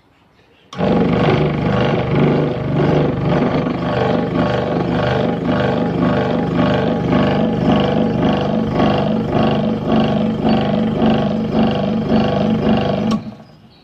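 Hegner scroll saw switched on and running, with a regular pulsing rattle from the machine vibrating and shifting on its stand. The noise and vibration persist even after the table was filed to clear the blade. It starts under a second in and cuts off suddenly about a second before the end.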